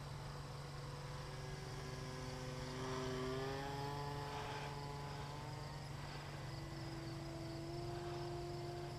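Electric motor and propeller of an RC model Cessna 350 Corvalis whining faintly in flight, its pitch rising about three seconds in, then dropping and holding steady.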